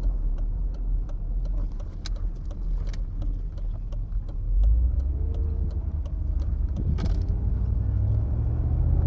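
Mercedes SL500 R129's M119 5.0-litre V8 running as the car drives, heard from inside the cabin, with scattered light clicks and a brief thump about seven seconds in. The engine note climbs slightly near the end as the car picks up speed.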